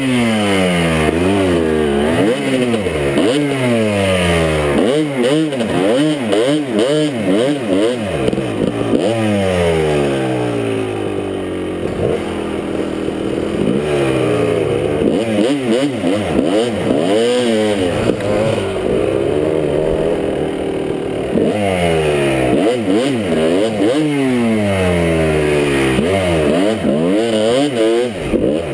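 Dirt bike engine revving up and down over and over as the rider works the throttle through deep snow drifts, its pitch rising and falling every second or two.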